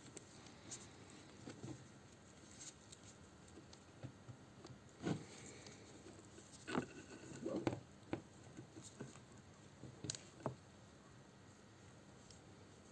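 Faint, scattered light clicks and taps of small parts being handled, a handful spread over several seconds, the loudest near the middle.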